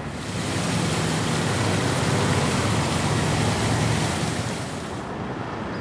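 A vehicle passing on the road: a rush of tyre and road noise that swells, holds for a few seconds and fades about five seconds in, over a steady low hum of traffic.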